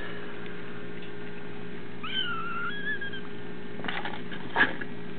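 A kitten meowing once, a long high wavering mew about two seconds in, followed near the end by a couple of short knocks, over a steady low hum.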